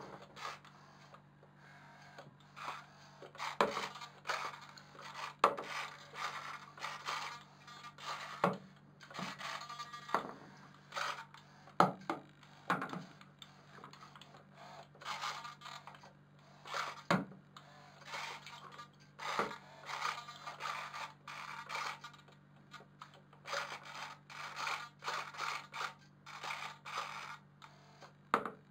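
Small electric drive of a miniature model tugboat running in short irregular bursts, its propeller churning the water in a washbasin, with scraping noises and a few sharp knocks as the wooden hull bumps the basin.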